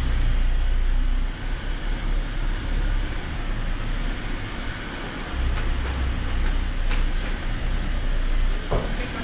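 Jeep Wrangler Rubicon's engine running at a low, steady crawl as the vehicle picks its way slowly over rough ground, with a couple of short knocks late on.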